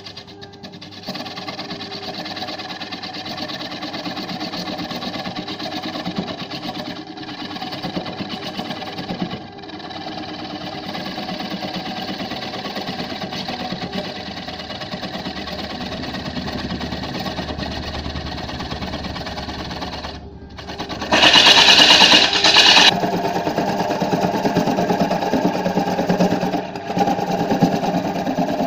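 Wood lathe spinning a large wooden disc while a hand-held turning tool cuts into it, a steady rapid chattering hiss of the blade shaving the wood. About 21 seconds in, after a short dip, the cut turns louder and harsher for about two seconds, then settles back into steady cutting.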